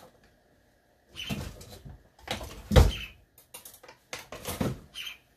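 Irregular knocks and clatter of kitchen cupboard doors and drawers being opened and rummaged through, the loudest knock nearly three seconds in.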